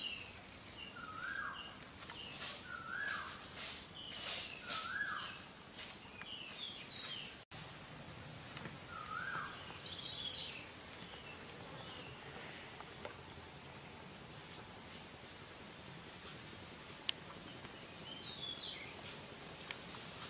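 Birds calling outdoors: short, quickly bending calls repeated about once a second, thinning out in the second half. A steady high-pitched insect whine runs behind them and stops about three quarters of the way through. A few brief rustles come in the first few seconds.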